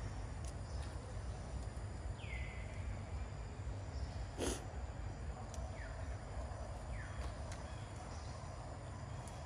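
Outdoor ambience with a steady low rumble, broken by a few short high chirps that fall in pitch and a single sharp snap about four and a half seconds in.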